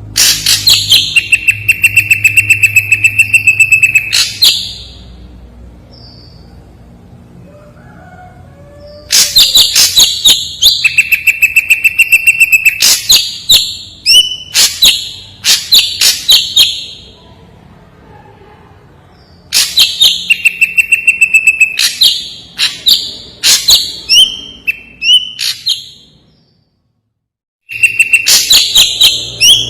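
Ashy drongo singing loud, clear phrases of rapid sharp notes, some with a steady held whistle, repeated about every ten seconds with short pauses between.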